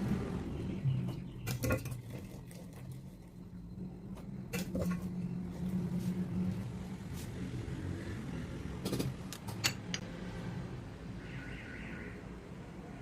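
A steady low hum with a few sharp clinks and knocks scattered through, two of them close together about nine seconds in.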